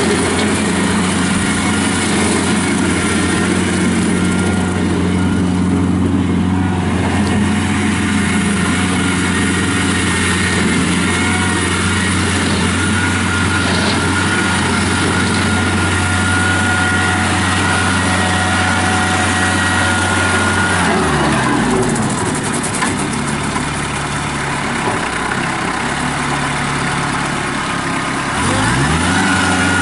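Kubota B2910 compact tractor's three-cylinder diesel engine running steadily at a constant high speed. About two-thirds of the way through the engine slows down and runs lower, then speeds back up near the end.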